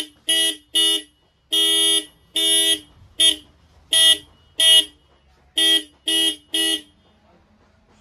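A pair of Bosch FC4 electric disc horns sounding in about ten separate beeps, most of them short and two held a little longer, then falling silent near the end.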